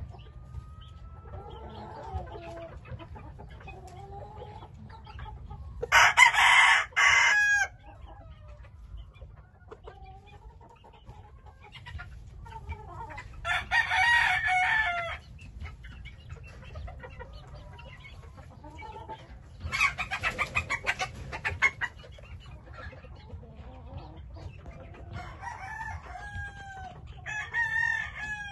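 Gamecocks crowing: three loud crows several seconds apart, each lasting about one and a half to two seconds, then a fainter crow near the end, with softer calls between them.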